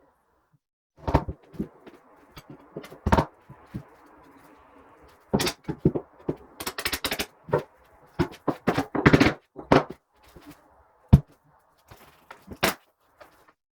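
Irregular knocks, thuds and scraping, some in quick rattling clusters: hands-on work with building materials and tools.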